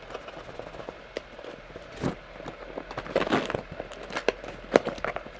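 Box cutter slicing through packing tape on a cardboard shipping box: scattered sharp clicks and scraping, with a longer rasping stretch about three seconds in.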